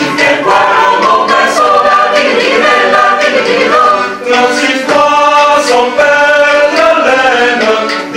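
Mixed chamber choir, men and women, singing a cappella in several parts, with a short break between phrases about four seconds in.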